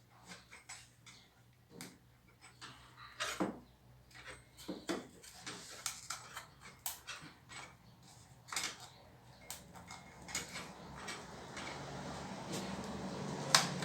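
Scattered light plastic clicks and knocks as a car turn signal lamp assembly and its bulb socket are handled. A steady low hum comes in near the end.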